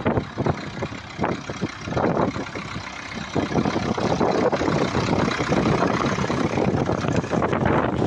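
Massey Ferguson 35 tractor engine running steadily under load while the tractor pulls a mounted plough through heavy, wet soil. It gets louder about three and a half seconds in.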